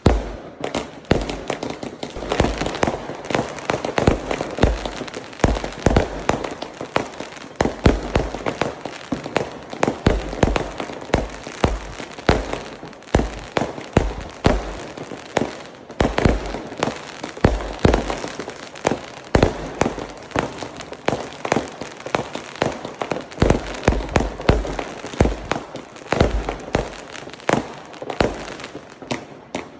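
Fireworks going off in a dense, continuous barrage: rapid bangs and crackles several times a second, with deep booms among them.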